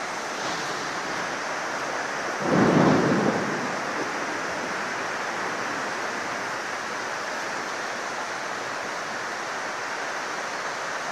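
Heavy rain and strong wind of a violent storm, a steady rushing noise, with a louder rumble swelling and fading about two and a half seconds in.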